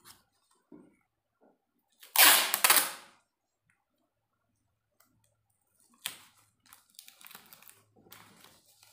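A sheet of A4 paper being handled and laid flat on cardboard: a loud crackling rustle about two seconds in that lasts about a second, a brief rustle about six seconds in, then faint rustling near the end.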